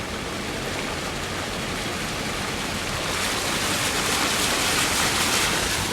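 Steady rushing of rain and water from a car driving through flooded streets in a tropical storm. The hiss grows louder about three seconds in.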